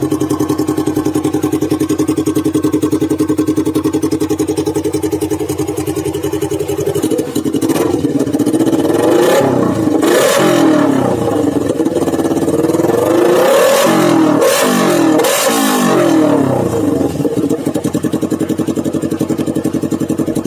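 Motorcycle engine through a short GP-style aftermarket racing exhaust, idling steadily, then revved in a run of quick throttle blips rising and falling in pitch from about seven seconds in, before settling back to idle near the end.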